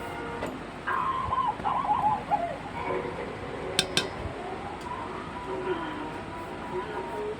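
A bird calling, a short wavering run of notes falling in pitch about a second in, with further calls later. Two sharp clinks of dishes come a little before the middle.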